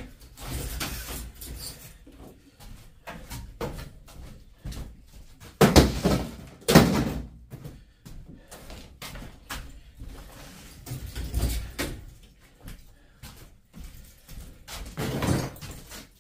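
Scrap metal from stripped air conditioners being handled and tossed while loading: a run of clatters and knocks, with loud bangs about six and seven seconds in and another near the end.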